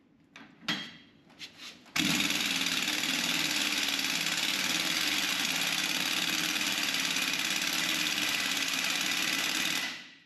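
A 1-inch pneumatic impact wrench hammering continuously on a rusted-in, broken-off bolt seized in the gauge wheel bushing. It starts about two seconds in, after a few faint knocks, runs steadily for about eight seconds and cuts off sharply near the end.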